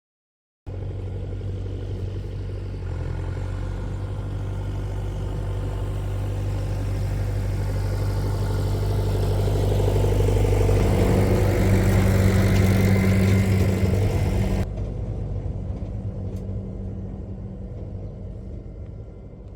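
A large farm-machine engine running steadily with a low hum. It grows louder toward the middle and then fades, and its higher sounds drop away abruptly about two-thirds of the way through.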